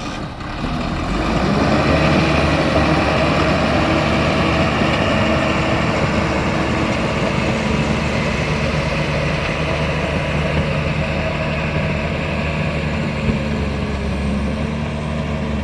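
Caterpillar D5G crawler dozer's diesel engine running steadily under a low, even hum, after a brief dip in level just at the start.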